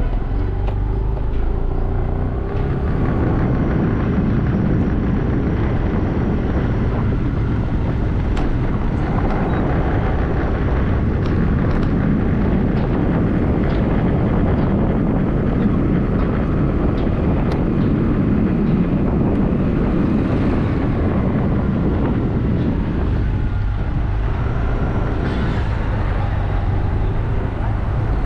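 Steady road and traffic noise from a car on the move, a continuous low rumble with the hum of engines.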